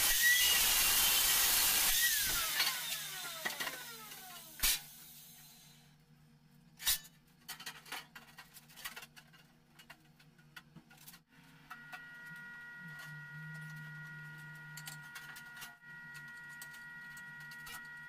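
Angle grinder cutting sheet metal, switched off about two seconds in, its whine falling as the disc spins down. Then scattered clinks and knocks of the sheet-metal pieces being handled, and a steady high hum that starts about two-thirds of the way through.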